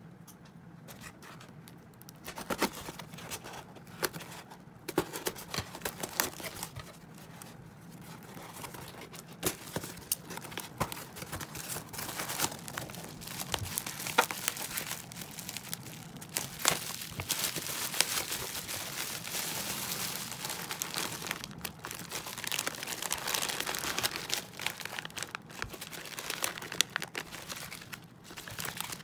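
A parcel being unwrapped by hand: a taped cardboard box torn open, then bubble wrap and small plastic bags crinkling and rustling as they are handled, with many sharp cracks.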